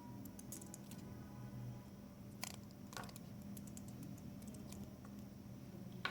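Faint clicks and taps of small plastic surprise-egg capsules and toy pieces being handled, with two sharper clicks a few seconds in and another near the end.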